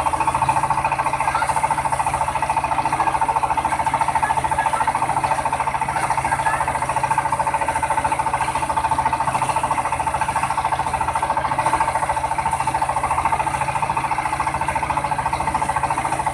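Truck-mounted mobile rice milling machine running steadily, a continuous machine drone with a strong steady hum and a fast, even pulsing.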